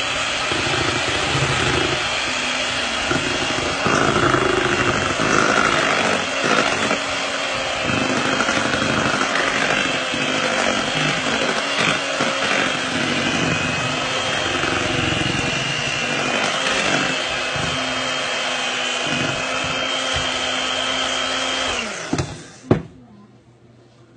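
Electric hand mixer running steadily, beating chocolate cake batter as sifted flour is added. It is switched off about two seconds before the end, followed by a single sharp knock.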